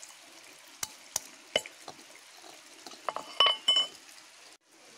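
Screwdriver tip scraping and clicking against a dry half coconut shell as a hole is worked through it. A few sharp clicks come in the first couple of seconds, then a short burst of scraping and clicking with a brief ringing note a little after three seconds in.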